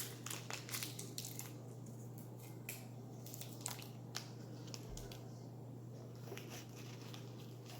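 Small clicks and light scraping of a plastic spoon scooping sodium borate powder, a quick run of ticks in the first second or so, then a few scattered ticks, over a low steady hum.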